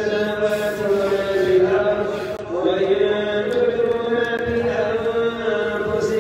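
A man's voice chanting Quranic recitation for congregational prayer, in long held melodic lines that slide from note to note.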